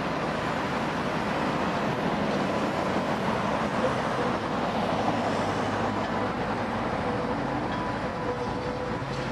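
Red New Orleans streetcar rolling past and through a curve at an intersection: a steady rumble of steel wheels on the rails, with a faint thin whine held through the middle.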